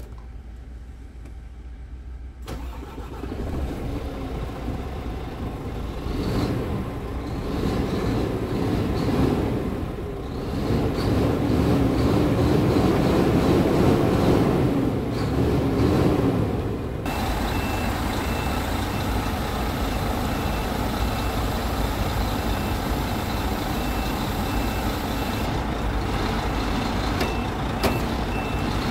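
Scania R truck's diesel engine running, heard from the cab, with the revs raised to about 1,400 rpm and the sound growing louder through the first half. Partway through it changes to a steady engine drone with a regular high warning beep while the hooklift arm operates.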